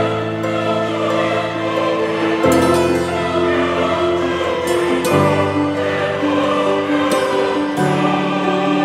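Background music: slow, held chords that change about every two and a half seconds.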